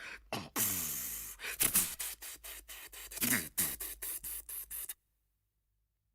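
Wordless vocal noises, with pitch glides, mixed with sharp clicks and hissing, rubbing sounds. The sound cuts off to complete silence about five seconds in.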